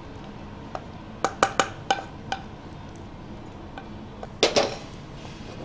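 A spoon clinking and knocking against the rim of a pan while thick rice kheer is scraped out into a bowl. There are several quick clinks, then a louder double knock near the end.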